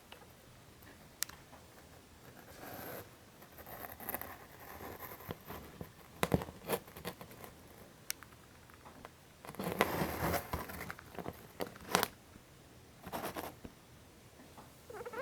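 Degus grinding their teeth (bruxing), heard as quiet, irregular rasping bursts with a few sharp clicks: the contented grinding of relaxed, sleepy degus.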